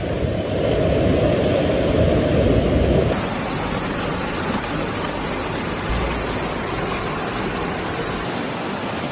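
Rushing floodwater: a steady, loud noise, deep for the first three seconds, then brighter and hissier after an abrupt change about three seconds in.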